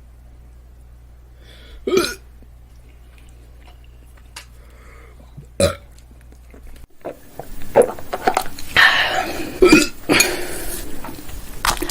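A woman burping: two short single burps a few seconds apart, then a run of louder burps in quick succession.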